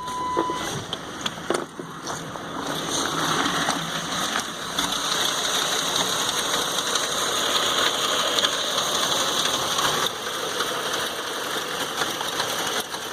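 Ford 5.4-litre three-valve V8 idling rough with a rattle. The owner takes it for a valve timing fault, with the engine showing low vacuum: a jumped timing chain, failed cam phasers or a broken tensioner.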